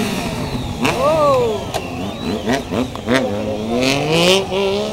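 A stunt motorcycle's engine revving up and down in repeated throttle blips, its pitch rising and falling several times, with a few short sharp bursts of noise between the revs.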